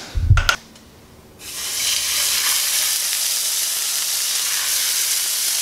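Sea robin fillets sizzling as they are laid into a hot frying pan. There is a brief knock first, and the steady sizzle starts about a second and a half in.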